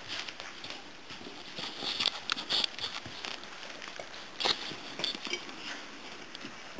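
A litter of puppies feeding together from a metal bowl: a scatter of small clicks, laps and rustles. It is busiest about two to two and a half seconds in and again about four and a half seconds in.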